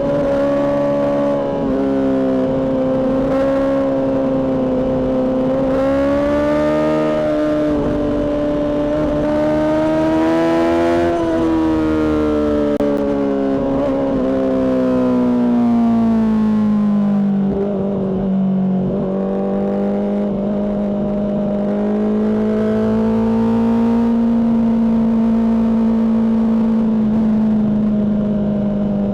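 Honda CBR600RR inline-four engine breathing through a Mivv aftermarket exhaust, running at high revs under way. The pitch climbs gradually for the first ten seconds or so, drops as the revs come down over the next several seconds, then holds nearly steady with a slight rise.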